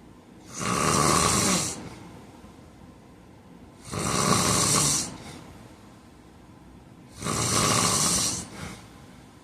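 A man snoring in his sleep: three snores about three and a half seconds apart, each lasting a little over a second.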